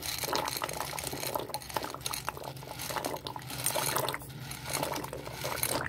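Pot of water at a rolling boil, bubbling and splashing as dry macaroni is poured in, with many small clicks and ticks from the hard pasta.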